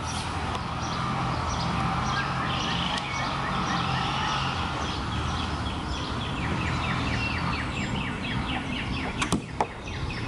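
Back-yard outdoor ambience: a steady low rumble with birds chirping, rising to a rapid run of chirps in the second half. Two sharp knocks come near the end.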